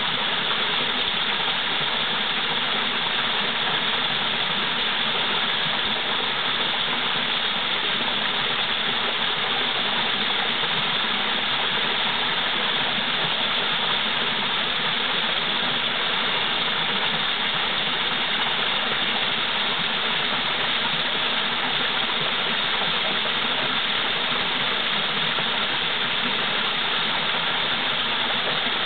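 Waterfall, the water pouring down in a steady, unbroken rush.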